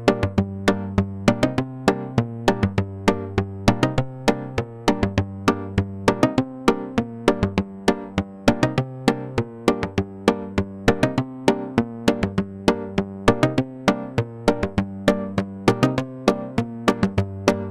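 Sequenced Korg Minilogue analogue synthesizer pattern in 4/4 at 110 bpm, with no drums: a fast, even run of short, sharply attacked notes over a held bass line.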